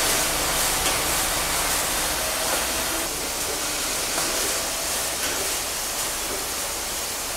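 Steady hissing din of factory machinery at a .22 Long Rifle bullet-seating press line.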